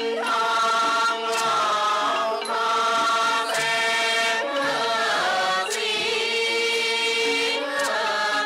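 Thai classical music for a khon masked dance drama: voices hold long notes that bend and waver in pitch, over an ensemble marked by regular light percussion strikes.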